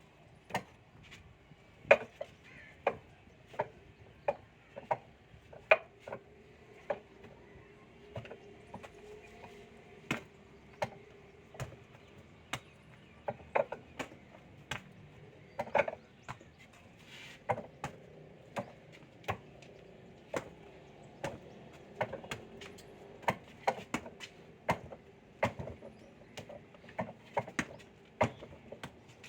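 Wing Chun wooden dummy being struck by hand: sharp wooden knocks, irregular and often in quick pairs or small clusters, about one or two a second.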